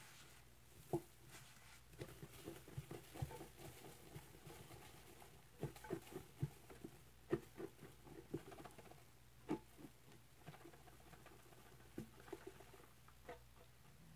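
Powdered scouring cleanser shaken out of a cardboard can into a plastic bucket: irregular soft taps and patter as the can is jerked and the powder lands on the pile.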